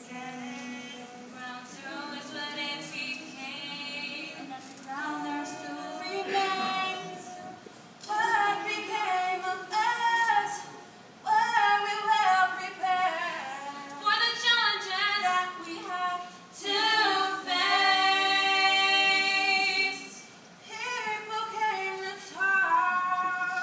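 A woman's voice singing unaccompanied, slow phrases with long held notes, quieter at first and louder from about eight seconds in.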